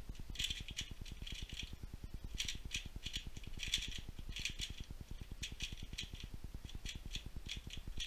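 3x3 Rubik's speedcube being turned fast during a speedsolve: runs of rapid plastic clicking and clacking from the layer turns, in bunches of a second or two with short pauses between them.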